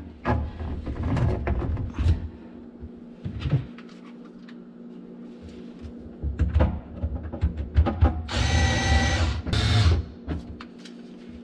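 Knocking and rustling as the plastic drain tube is worked onto the drain nipple, then, about eight seconds in, a cordless drill-driver whirs in two short runs as it tightens the hose clamp on the tube.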